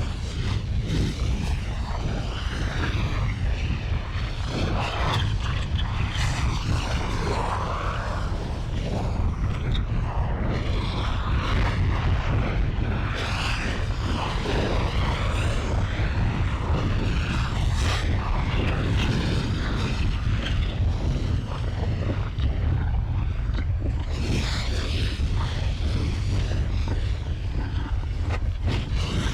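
Volcano lava-and-fire sound effect: a steady deep rumble with irregular crackling and hissing over it.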